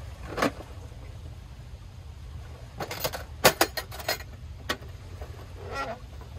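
A steel Stanley Classic lunch box set down on a folding stool with a knock, then its metal latches snapping open in a quick run of sharp clicks a few seconds in. The lid swings open with a short scrape near the end. A low steady rumble runs underneath.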